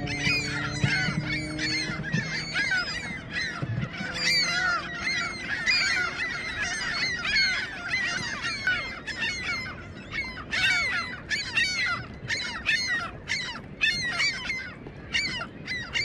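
A gull nesting colony calling: many gulls at once, their calls overlapping without a break in a cacophonous din.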